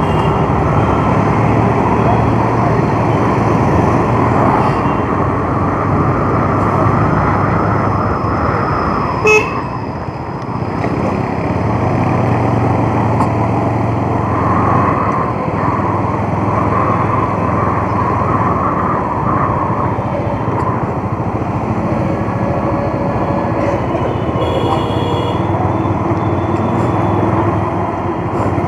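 Bajaj Avenger single-cylinder motorcycle engine running at low road speed, heard from the handlebar with wind and road noise. Short horn toots cut in, one sharp one about nine seconds in.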